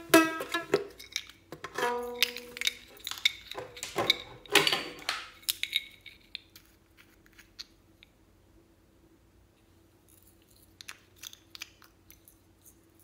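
Strings of a plastic toy guitar plucked and strummed a few times, each note ringing and dying away, over the first five or six seconds. Then faint clicks of small plastic makeup pots being handled and their lids opened.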